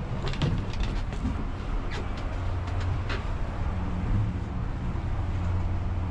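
Gondola lift machinery running with a steady low hum, with a few sharp clicks and knocks in the first three seconds.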